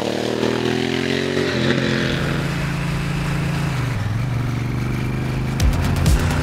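Honda Africa Twin Adventure Sports parallel-twin engine on the move. Its pitch falls over the first second and a half, then holds steadier with a drop about four seconds in. Music with a beat comes in near the end.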